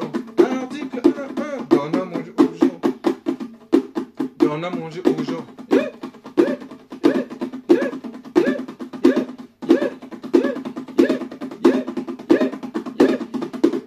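Pair of bongos played by hand in a quick, steady rhythm, with a held low tone running underneath.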